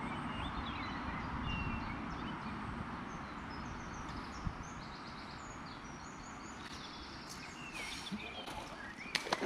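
Small birds chirping and calling repeatedly over a steady outdoor background hiss, with a sharp click near the end.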